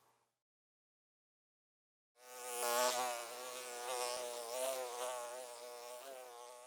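A bee buzzing in flight, its drone wavering up and down in pitch. It starts suddenly about two seconds in after a silence, is loudest soon after, and fades away near the end.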